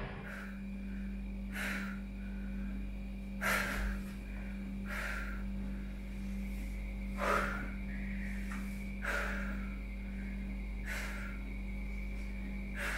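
A man breathing heavily, with audible breaths about every two seconds, over a steady hum.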